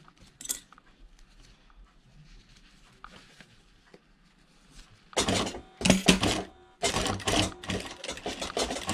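Sewing machine stitching in short runs, starting and stopping a few times from about five seconds in. Before that there are only faint clicks.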